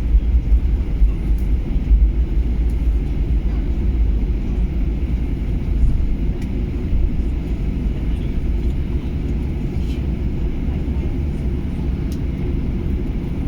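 Steady low cabin rumble inside a Boeing 737-800 rolling on the ground after landing, engine and wheel noise with a faint hiss above, easing slightly over the stretch.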